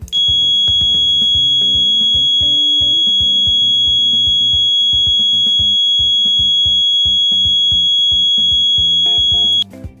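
A 3–24 V piezo buzzer wired to the relay coil of a wireless relay switch module, sounding one steady high-pitched tone from just after the remote's button is pressed until it cuts off suddenly near the end. It sounds continuously for as long as the relay is energised, since there is no timer circuit yet to make it a short beep. Background music plays underneath.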